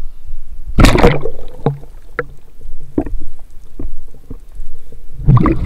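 Water splashing and sloshing close to the microphone: a loud splash about a second in and another near the end, with a few short knocks between.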